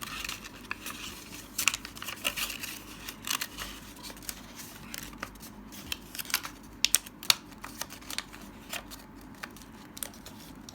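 A square sheet of paper being folded and pressed flat by hand: irregular rustling and crinkling broken by many short, sharp crackles and clicks as the creases are pushed in.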